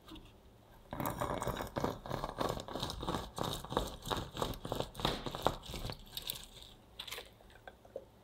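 A lemon half twisted and pressed by hand on a plastic citrus reamer over a glass bowl: about five seconds of rapid, rough grinding strokes, then a few light clicks near the end.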